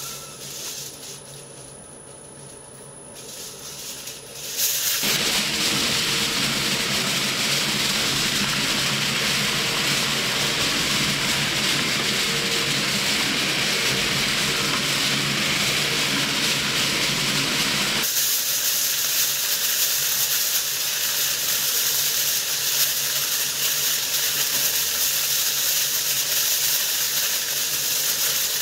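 Twin-shaft industrial shredder's steel cutter discs tearing and crushing aluminium kitchen foil, a loud steady crinkling hiss. It comes in suddenly about five seconds in, after a few quieter seconds.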